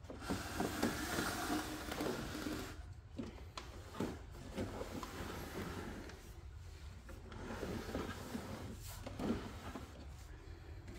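Wooden-framed wall clocks being handled: picked up, turned over and set down on a cloth-covered surface, with scattered soft knocks and rubbing.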